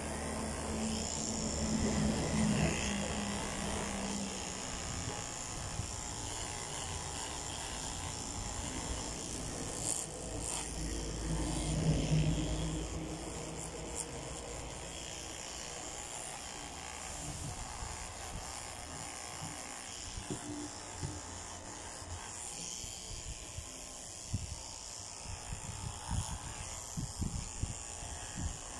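Electric pet hair clipper buzzing steadily as it shaves a dog's belly fur. Short soft knocks come now and then in the second half.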